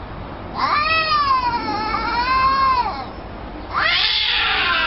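Domestic cats yowling at each other in a standoff: a long, wavering yowl lasting about two seconds, then after a short pause a harsher, rougher yowl. The yowling is the sign of an angry territorial confrontation between the two cats.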